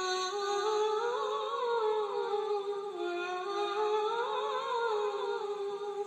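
A woman singing a wordless, ornamented line from an old Egyptian song: two long phrases, each gliding up and back down in pitch without a break.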